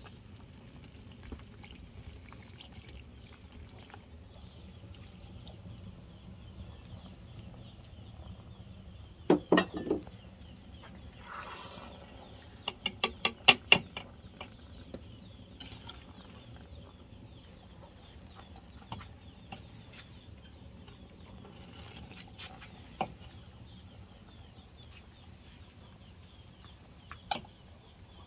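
Chickens clucking, with a few loud clucks about a third of the way in and a quick run of about six sharp calls about halfway through, then occasional single sounds.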